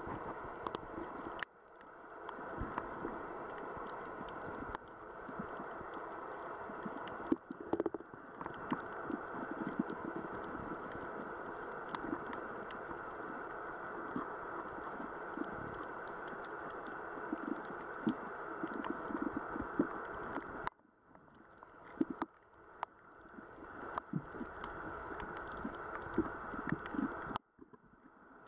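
Muffled underwater ambience on a coral reef: a steady dull rush of water with scattered crackles and clicks, dropping away briefly a few times.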